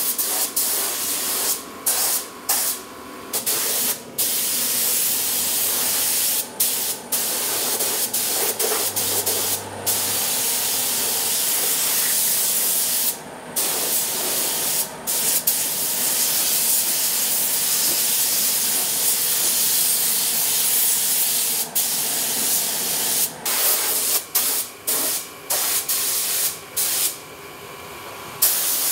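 Compressed-air paint spray gun spraying in long hissing bursts, with many short breaks between passes.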